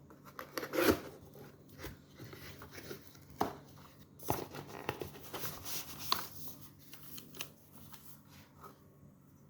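A mechanical keyboard's packaging being handled and opened: cardboard and plastic rustling and scraping, with irregular knocks, the loudest about a second in.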